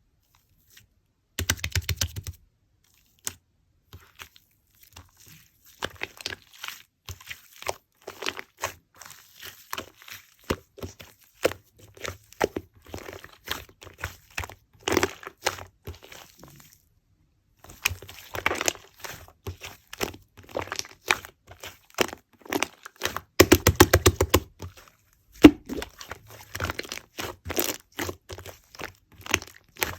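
Slime being handled and squished by hand: a steady run of sticky clicks, pops and crackles, with a short pause about halfway. There are thicker squelching bursts near the start and about three quarters of the way in.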